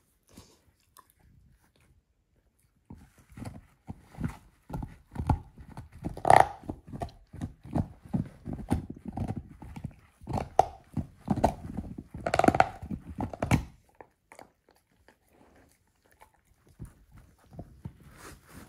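A dog chewing a lamb bone: quick runs of cracking, crunching bites begin about three seconds in, loudest about halfway and again near two-thirds of the way. They stop near the end, and fainter gnawing follows.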